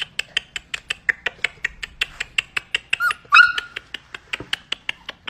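White fluffy dogs and puppies on a tiled floor: a rapid, even run of short clicks, about six a second. A short yelp comes about three seconds in.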